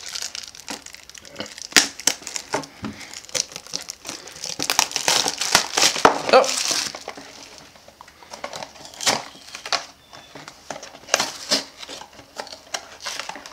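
Clear plastic shrink-wrap crinkling and tearing as it is peeled off a small cardboard blind box, densest around the middle. It is followed by sparser rustles and clicks as the box's cardboard flaps are pulled open.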